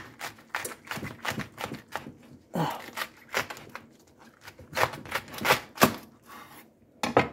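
A kitchen knife cutting through a head of green cabbage on a wooden cutting board: irregular crisp crunches and knocks, with a few sharper ones in the second half.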